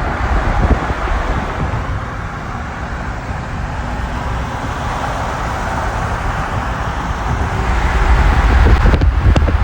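Car with a rebuilt 2.0T TFSI/TSI four-cylinder running, a steady low rumble with wind buffeting the microphone.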